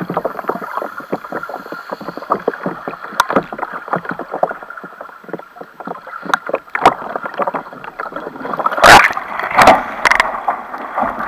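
Muffled gurgling, crackling and knocking of water around a camera mounted on a capsized kayak's deck. About nine seconds in, two loud splashes as the kayak rolls back upright, then water lapping against the hull.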